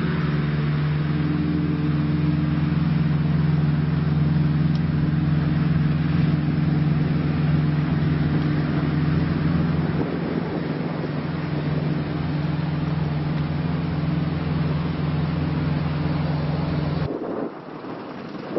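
An engine or machine running at a constant speed, a steady low drone made of several fixed pitched tones, which cuts off suddenly near the end.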